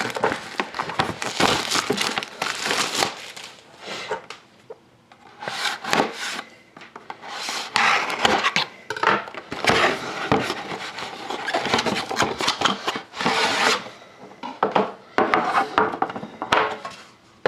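Hands opening and unpacking a tin box of trading cards: irregular scraping, rubbing and rustling in uneven bursts.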